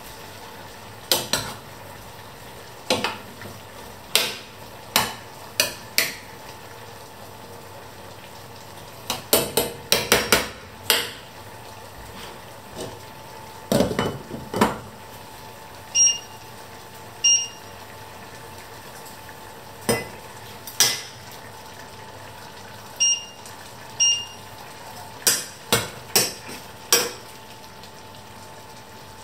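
Metal spoon, stainless steel pots and a glass pot lid clanking and knocking irregularly on a ceramic hob, with a quick run of clanks about ten seconds in, over the steady bubbling of pots boiling on the stove.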